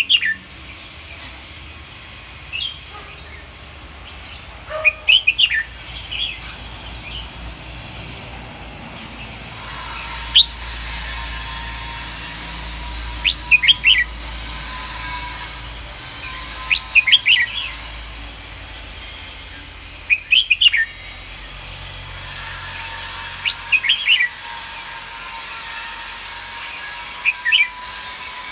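Red-whiskered bulbul singing short phrases of quick, high notes, a phrase every three to four seconds. A faint steady hum runs underneath, with a thin steady tone joining about ten seconds in.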